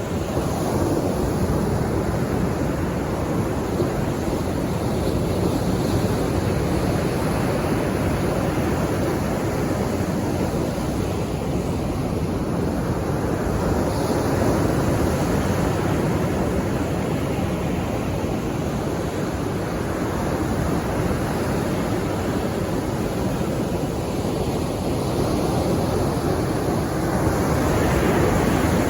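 Sea waves breaking and washing on the shore: a steady rush of surf that swells now and then, loudest near the end.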